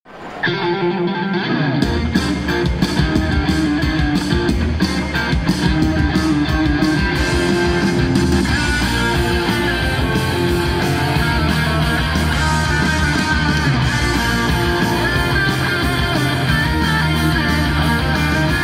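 Rock-style song with strummed electric guitar, loud and steady; drums and bass come in about two seconds in.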